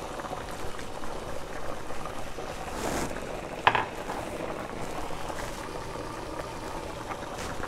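Large pan of rigatoni in water at a rolling boil, giving a steady bubbling hiss. A short, sharp knock or clink about three and a half seconds in.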